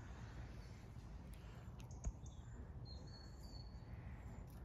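Faint outdoor ambience: a steady low rumble, a single sharp knock about two seconds in, and a few thin high bird chirps a second later.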